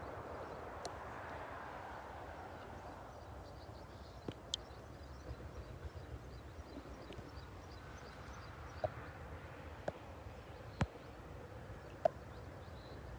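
Outdoor ambience: a low steady rumble, faint high bird chirps in the middle, and a handful of sharp, irregular clicks, the strongest near the end.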